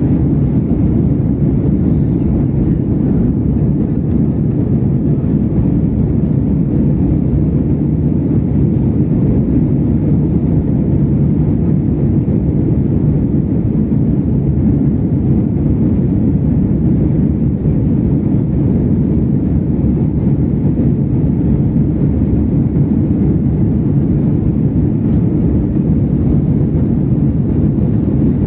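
Steady, loud cabin drone of an Airbus A320 in flight, from engine and airflow noise heard inside the cabin, with a deep, even rumble that does not change.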